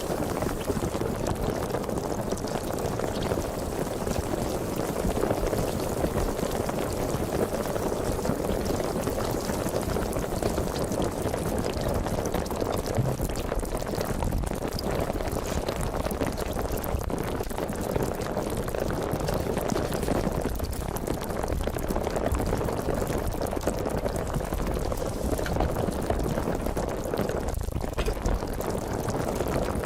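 Sparkling water fizzing: a steady, dense crackle of many tiny bubbles bursting.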